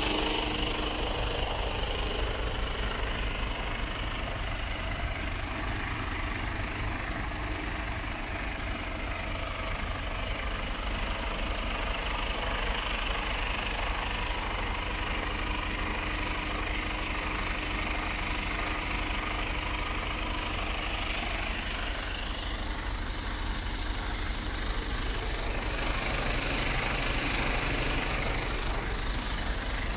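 Mercedes Actros 2548 tractor unit's 480 hp Euro 6 straight-six diesel idling steadily, a low even rumble.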